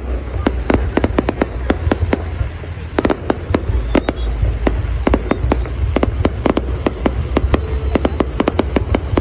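Aerial fireworks display: a rapid, uneven run of sharp bangs and cracks from bursting shells, several a second, over a deep rumble.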